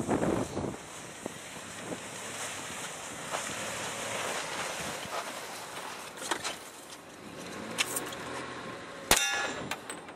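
Wind on the microphone, then shots from a Glock 23C .40 S&W pistol near the end, three close together. The loudest, about nine seconds in, is followed by the ring of a struck steel target plate.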